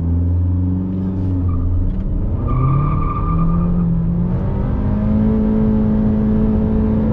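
Tuned Honda Civic Touring's 1.5 L turbocharged four-cylinder under full throttle on a 0–100 km/h launch. The engine note holds low at first, climbs about two seconds in, then stays at one steady pitch as the CVT holds the revs. A thin high whistle sounds briefly around the middle.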